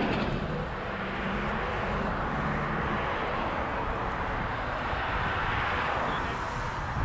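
Road traffic on a multi-lane bridge: cars passing close by with a steady rush of engines and tyres.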